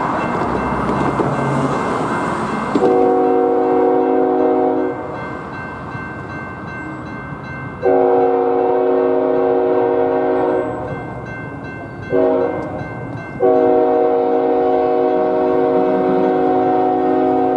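Approaching freight train's locomotive horn sounding the grade-crossing signal: two long blasts, a short one, then a long one that is still going at the end. Under it, the crossing's electronic bell (GS Type 2 E-Bell) rings steadily while the gates lower.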